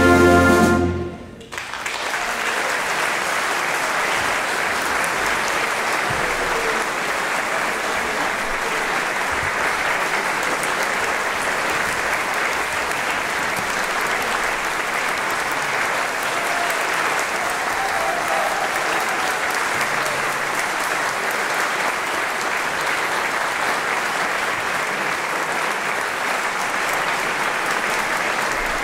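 An orchestra's final chord cuts off about a second in. After a brief pause, a concert hall audience applauds steadily and evenly.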